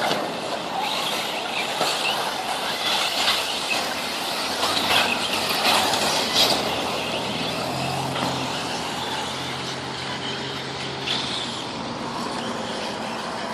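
1/8-scale electric RC buggies racing on a dirt track: tyres scrabbling on loose dirt and electric motor whine, with a few sharp knocks in the first half as the buggies land and hit things.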